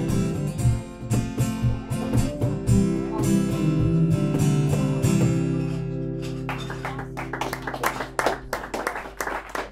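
Acoustic guitar strumming the closing chords of a song, then a final chord left ringing and fading. Clapping breaks out about two-thirds of the way through.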